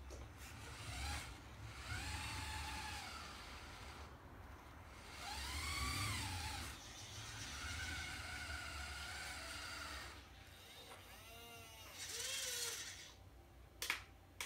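Carson Linde H40D RC model forklift driving and turning, its motor whine rising and falling in pitch several times with the throttle. Two sharp clicks near the end.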